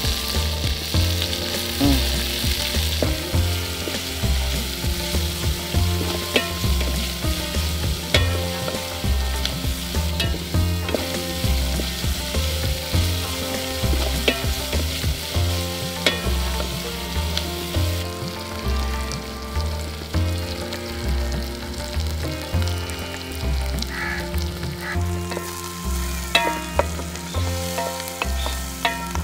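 Sliced onions and green chillies frying in oil in an aluminium pot, with a steady sizzle. A wooden spatula stirs them, scraping and knocking against the metal. Music with a stepping bass line plays underneath throughout.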